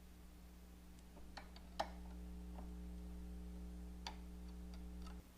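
Faint, irregular small clicks and taps of hands working among plastic trim and wiring under a raised motorcycle instrument panel, over a steady low hum that cuts off near the end.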